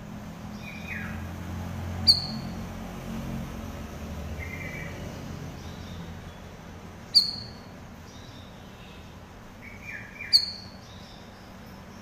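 Cucak rawis calling: three sharp, short, high chirps that drop in pitch, about 2, 7 and 10 seconds in, with softer, lower chirping notes between them.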